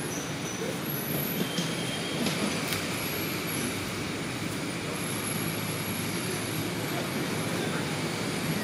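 Steady outdoor background noise, a low rumble and hiss like distant traffic, with a few faint high-pitched squeaks and light clicks in the first three seconds.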